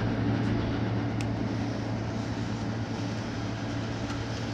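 Steady low mechanical hum with a faint click about a second in.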